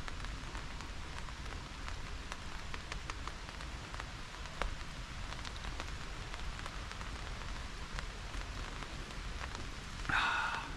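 Steady rain falling on a tarp shelter, with many individual drops ticking against it. Near the end comes one brief, louder pitched sound.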